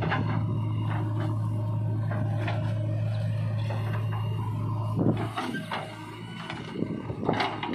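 JCB 3DX backhoe loader working with a steady low drone as it swings a full bucket of soil. About five seconds in there is a loud knock, the drone drops away, and a run of clattering knocks follows as the soil is tipped into a tractor trolley.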